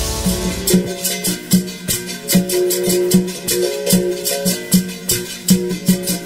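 Outro music: a steady rhythm on a pitched string instrument, about two and a half strokes a second, alternating two notes, over a shaker.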